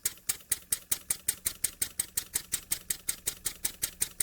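Jowitt Major poppet valve model steam engine running on compressed air, with an even beat of sharp exhaust puffs, one per stroke. The beat quickens from about five to about seven a second as the engine picks up speed.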